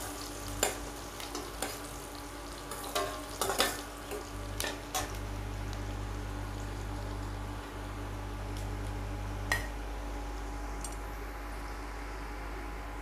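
Chopped onions sizzling as they fry in oil with mustard and cumin seeds in a steel kadai. A steel ladle clicks and scrapes against the pan as they are stirred for the first five seconds or so, then the frying goes on steadily with a low hum underneath and one more knock of the ladle near the end.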